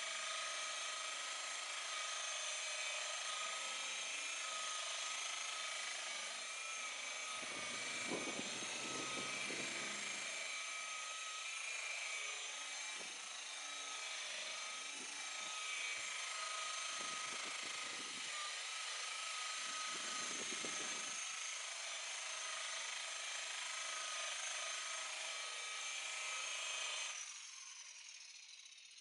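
Electric buffer-polisher motor running at a steady high-pitched whine, with a few low rumbles in the middle as the pad works the boat's gelcoat; about two seconds before the end it is switched off and the whine falls away as it spins down.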